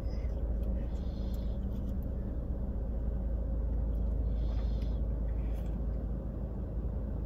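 Steady low rumble inside a car cabin from the idling car, with a faint steady hum over it. A few faint soft hisses of a child sipping from a drink can come through about a second in and again around four seconds in.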